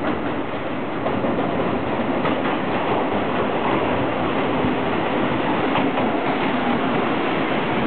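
JR Kyushu ED76 electric locomotive hauling a rake of blue sleeper coaches pulling into the station, a steady rumble of the locomotive and its wheels running on the rails.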